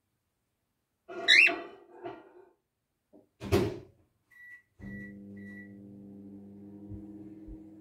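Cockatiel calling: a loud whistled call that glides up and down about a second in, a fainter one after it, and a short harsh call about three and a half seconds in. Then three short high beeps, followed by a steady low hum.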